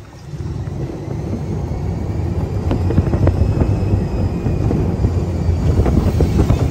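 Heavy wind rush and buffeting on the microphone from riding in an open-fronted Test Track ride vehicle at speed on its outdoor track, a steady low rumble.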